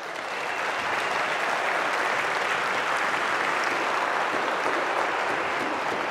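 A large audience applauding; the clapping swells over the first second and then holds steady.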